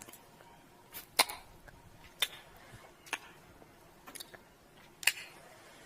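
Close-up kiss sounds made with the lips: a series of short, sharp smacks, about one a second, with a quick double kiss about a second in.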